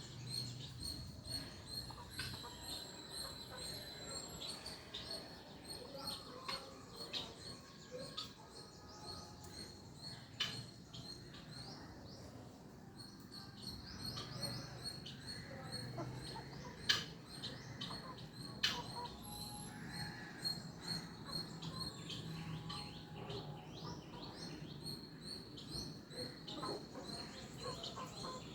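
Guinea fowl giving soft, quick repeated chirps, about three or four a second in stretches, instead of their loud calls, with scattered sharp clicks.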